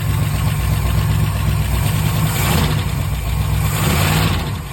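Ford 390 FE V8 with a Holley carburetor running just after catching on its first start, with two brief swells in the noise about two and four seconds in.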